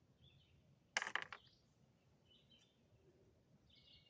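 Spent brass cartridge cases clinking together in a rifle's brass catcher: a quick cluster of metallic clinks about a second in. Faint bird chirps now and then.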